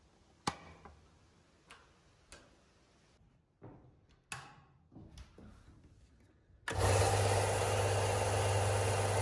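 A few sharp clicks of switches being flicked on the switchboard and the power point, then a Ryobi belt and disc sander starts suddenly about two-thirds of the way in and runs with a steady motor hum.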